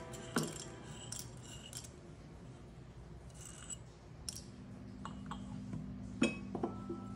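Light scraping and small clicks from handling a Timemore C2 hand grinder and its parts, then about six seconds in a sharp clink of a ceramic V60 dripper set onto a glass decanter, followed by a couple of lighter taps.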